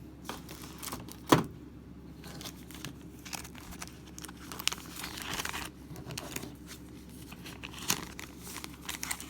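Board-game components and packaging being handled: scattered rustling and crinkling with light clicks, a sharp knock just over a second in, and a longer stretch of crinkling around the middle.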